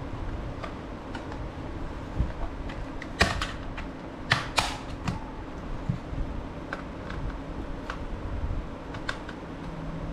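Scattered sharp clicks and taps of hard plastic being handled, with the three loudest about three to four and a half seconds in, over a low steady background rumble.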